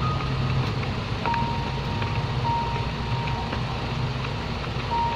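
A steady low mechanical hum, with a high steady tone that sounds for about two seconds and comes back near the end.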